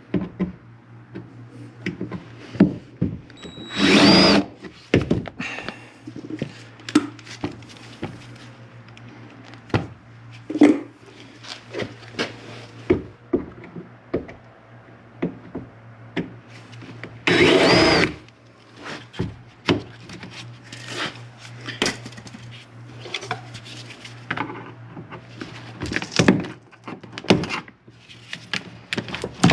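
Power drill running in two short bursts, about four seconds in and again past halfway, drilling out the rivets that hold the door speaker to the window regulator. Between the bursts come scattered clicks and knocks of metal and plastic parts being handled.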